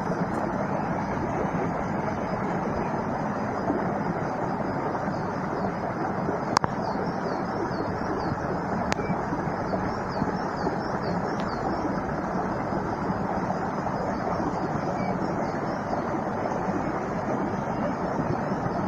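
Steady rushing water, with faint high bird chirps in the middle and two sharp clicks.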